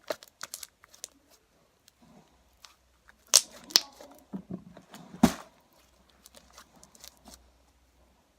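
Homemade slime being worked by hand: scattered sticky clicks and pops, the loudest a little after three seconds in and again about five seconds in.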